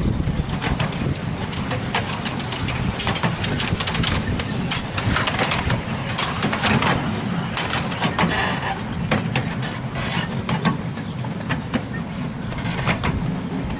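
A 7¼ inch gauge miniature railway train running along the track behind its diesel locomotive: a steady low engine rumble with the wheels rattling and clicking over the rails many times throughout.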